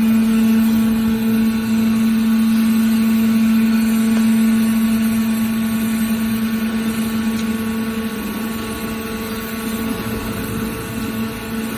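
ACCE VB1000 horizontal baler's hydraulic power unit running, a steady drone with one strong even pitch. It eases slightly in loudness about eight seconds in.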